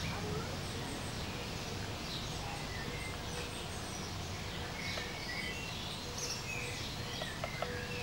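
Small birds chirping and twittering in short, scattered calls, over a steady low outdoor background hum.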